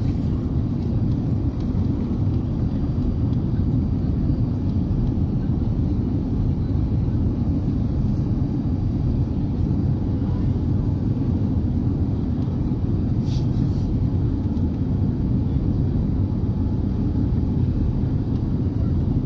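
Steady low rumble of engines and airflow heard inside the passenger cabin of a Boeing 787-9 Dreamliner during take-off. A brief higher-pitched click or rattle sounds about two-thirds of the way through.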